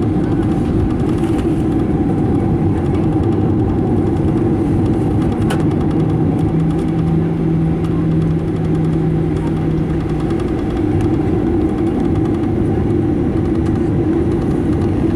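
Cabin noise of a Boeing 737-900ER taxiing, its CFM56-7B engines running at low power as a steady hum. A low tone joins for a few seconds midway, and there is a faint click about five seconds in.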